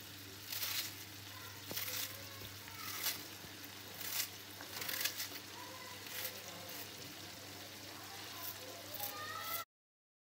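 Minced meat sizzling gently in a frying pan while an onion is diced by hand with a knife over it. About once a second there is a short, crisp burst as a cut goes through the onion and the pieces drop into the hot pan. The sound cuts off abruptly near the end.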